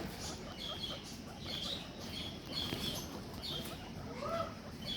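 Guinea pigs squeaking: short high squeaks repeating about once or twice a second, with one lower call that rises and falls about four seconds in.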